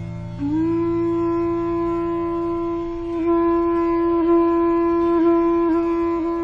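Music: a wind instrument holding one steady note that slides up into place about half a second in, with several quick grace-note dips in the second half. A low drone beneath it fades away.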